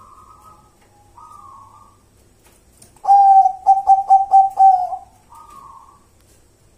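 Zebra dove (perkutut) cooing: about three seconds in, a loud, rapid run of short, clipped coos at one steady pitch lasting about two seconds, with softer, higher calls before and after.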